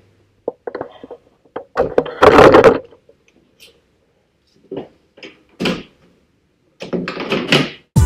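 A car hood being unlatched and raised, with a loud clatter lasting about a second two seconds in, followed by a few shorter knocks and clunks as the hood is handled from underneath.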